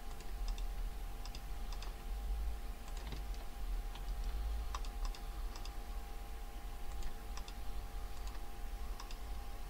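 Irregular computer keyboard key presses and mouse clicks, a few scattered clicks a second, over a steady low hum.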